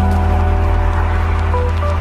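Background music: a sustained, held chord over a deep, steady bass note.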